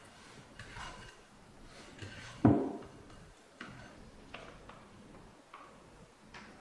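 Scattered light clicks and taps of a plastic dough scraper working bread dough in a glass mixing bowl, with one louder thump about two and a half seconds in.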